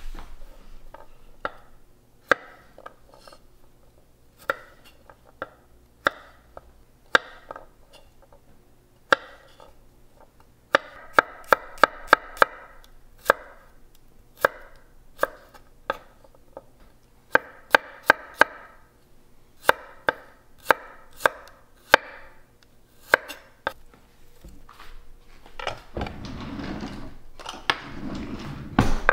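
Chef's knife thinly slicing peeled garlic cloves on a wooden cutting board: sharp knocks of the blade on the board, some spaced out and some in quick runs of several a second. Near the end a duller, rough rustling noise takes over.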